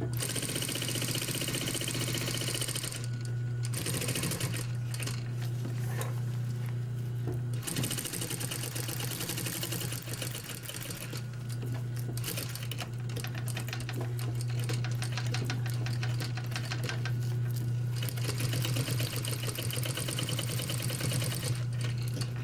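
Industrial lockstitch sewing machine stitching hook-and-loop tape onto mask fabric in several runs broken by short pauses. Its motor keeps up a steady low hum through the pauses.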